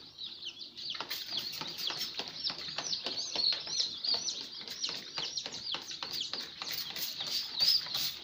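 Many newly hatched chicken chicks peeping at once: rapid, overlapping high chirps without a break. Scattered sharp clicks and rustles join in from about a second in.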